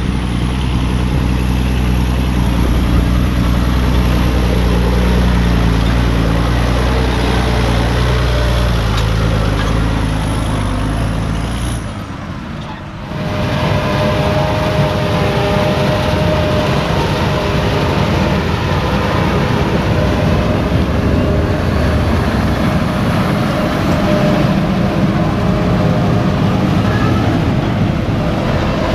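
Heavy farm machinery running steadily under load, engine hum with a high thin whine above it. About twelve seconds in the sound cuts to a different, rougher steady machine noise.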